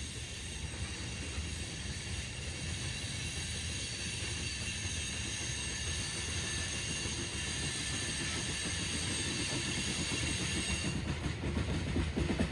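CSX freight train rolling along the track, a steady rumble of cars and wheels that slowly grows louder.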